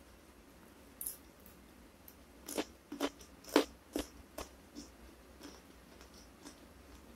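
Close-miked chewing of a mouthful of fried fish with sambal matah. A single crunch comes about a second in, then a run of sharp crunches between about two and a half and four and a half seconds in, fading to soft chewing.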